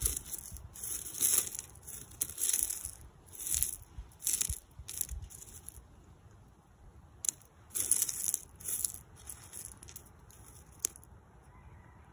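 Loose rock chips crunching and rattling in a string of short, scratchy scrapes as a hand sifts through them and picks out a fragment. There is a pause about halfway before the scraping starts again.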